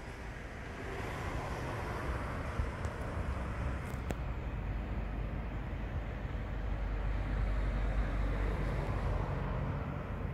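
Steady outdoor background rumble beside a cement works, a deep low drone under a hiss of noise that swells about seven seconds in.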